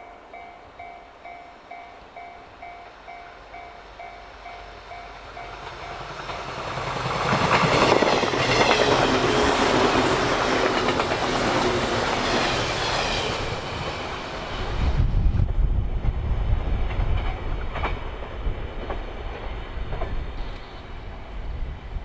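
Level crossing warning bell ringing at about two strokes a second. From about six seconds in, a 485 series electric limited express train comes up and passes close by, loudest for several seconds, then its wheels clack over the rail joints in a low rumble that fades near the end.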